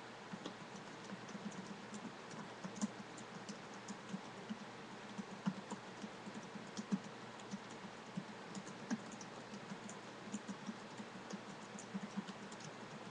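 Typing on a computer keyboard: a steady, uneven run of keystrokes, several a second, with a few louder key strikes now and then.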